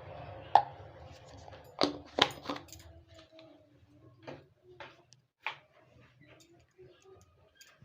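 Kitchen utensils clinking: a metal spoon and containers knocking against a bowl while baking soda is added to dosa batter. There is one sharp clink early, a quick run of clinks about two seconds in, then lighter scattered taps, over a low hum that stops about three seconds in.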